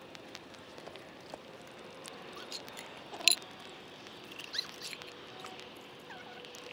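Wood campfire crackling with scattered small pops, and one sharp, loud pop about three seconds in. A few short, high chirps near the middle.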